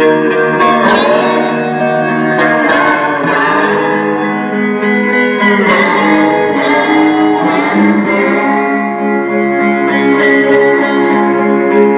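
Fender Stratocaster electric guitar played through a Roland CUBE-80XL amp on a clean tone with delay, a little chorus and reverb. Picked chords and single notes ring on into one another, several attacks a second.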